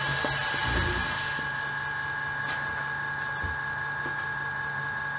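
Steady hum with a thin high whine throughout. Over it come a few soft low sounds about a second in and again about three and a half seconds in, as smoke is drawn through a hookah's water base and then exhaled.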